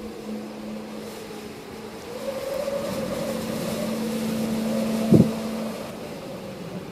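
Wind rushing past the microphone over a steady low hum. The wind swells from about two seconds in, and a single thump about five seconds in is the loudest sound.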